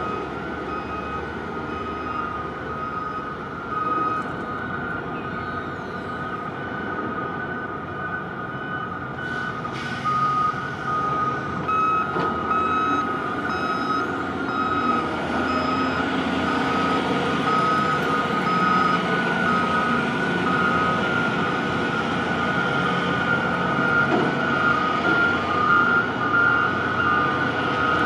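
Warning beepers on container-terminal cargo-handling machinery beeping steadily and repeatedly, over a continuous mechanical rumble of the working equipment that grows a little louder about ten seconds in.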